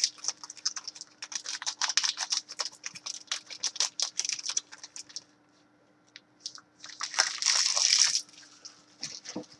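Hockey card pack wrapper crinkling and rustling as it is opened by hand. The rustling is dense for the first four and a half seconds, then comes back in a short burst about seven seconds in.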